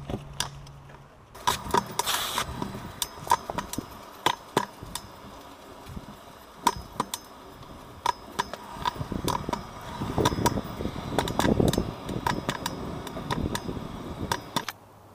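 Stunt scooter rolling on concrete: the wheels rumble over the pavement, with many sharp clicks and clacks, louder about two-thirds of the way through. The sound cuts off suddenly near the end.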